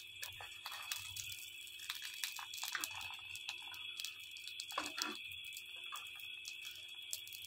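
Pita bread frying in oil on a hot iron tawa: a steady sizzle with scattered crackles. A slotted metal spatula scrapes across the griddle a couple of times, around the middle.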